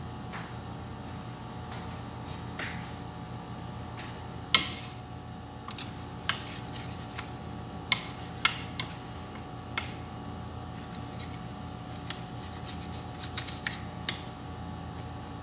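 A wooden spatula scraping and knocking against a metal baking tray as small pizzas are lifted: a scattering of sharp clicks and scrapes, the loudest about four and a half seconds in and several close together near the end. A steady low hum runs underneath.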